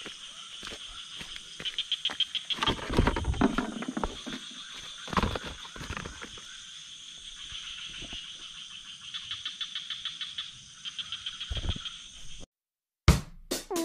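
Night chorus of frogs and insects: a steady high trilling made of fast pulsed calls. Louder rustling and knocks come a few seconds in, and the chorus cuts off suddenly near the end, followed by a few sharp clicks.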